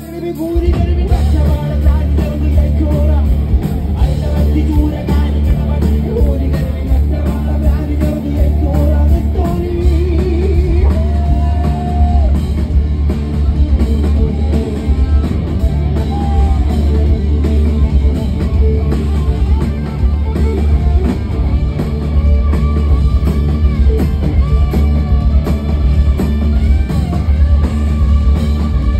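Live rock band playing loud: a singer's voice over drum kit, electric guitar and a heavy bass line.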